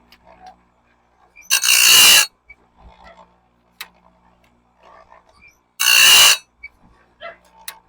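Electric chainsaw-chain sharpener's grinding wheel grinding bandsaw blade teeth: two short, harsh grinds about four seconds apart, with faint handling knocks between them as the blade is moved to the next tooth.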